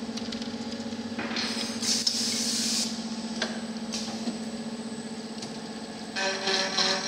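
Special purpose milling machine for check nuts running with a steady motor hum. A burst of air-like hiss comes about a second in, and a few clicks follow. About six seconds in, a louder rattling clatter starts as the cutter works on a nut under coolant.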